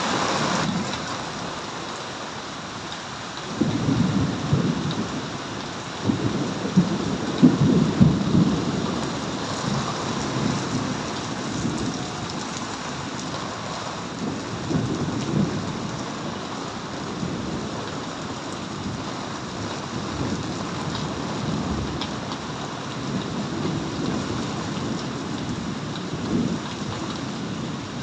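Thunderstorm: steady rain with loud rolling thunder rumbling in waves, strongest about four to nine seconds in, with further rolls around fifteen and twenty-six seconds in.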